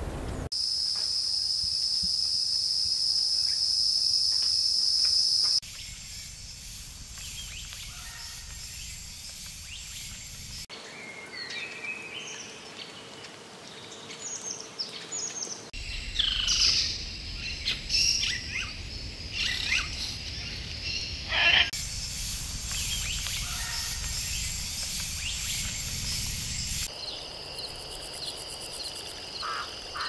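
Tropical forest ambience that changes abruptly about every five seconds: a steady high insect drone, then assorted bird chirps and calls, loudest in the middle, and another steady high insect drone near the end.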